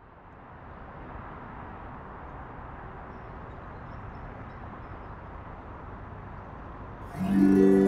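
Steady road-traffic noise, a constant rush of passing cars that fades in at the start. About seven seconds in, background music comes in over it and is louder.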